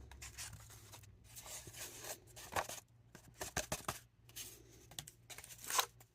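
Plastic blister pack of trading cards being opened by hand: irregular crinkling, tearing and rustling of plastic and card, with many short sharp clicks.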